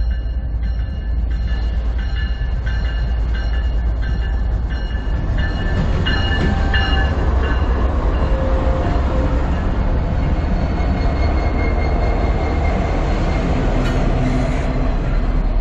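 Freight train passing close by: the diesel locomotives go by with a steady heavy rumble, then intermodal container cars roll past. Thin high ringing tones come and go through the first half.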